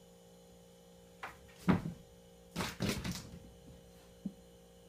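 A cat knocking against a wooden kitchen cabinet and scrambling away across a tile floor. A sharp knock comes just under two seconds in, then a flurry of scuffs and knocks, and a last light tap near the end.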